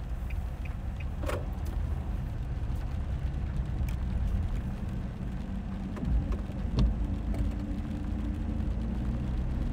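Car driving slowly on a wet road, heard from inside the cabin: a steady low rumble of engine and tyres, with a few faint clicks.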